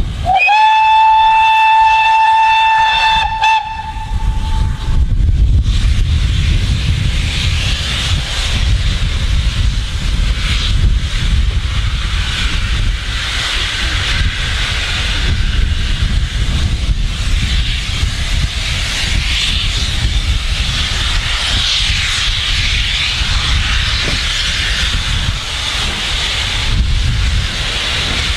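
Steam locomotive whistle sounding one long blast of about four seconds, its pitch rising briefly as it opens, followed by a steady hiss of escaping steam from the locomotive.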